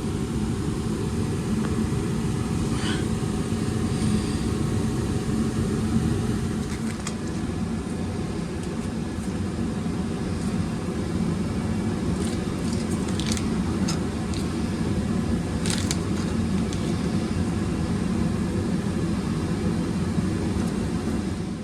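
Gas furnace running on a call for heat, burners firing, with a steady low rumble and a few light clicks and taps.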